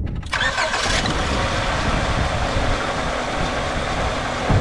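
1999 Honda Accord engine running at a rough idle, misfiring on cylinders 1 and 3. The sound comes in suddenly louder about a third of a second in, then runs steadily.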